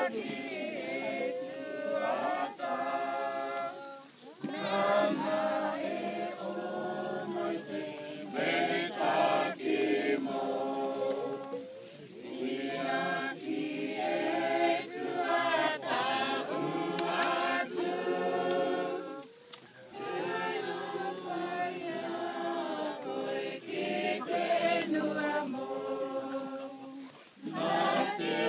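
A crowd singing a hymn together unaccompanied, in long phrases with short breaks between them.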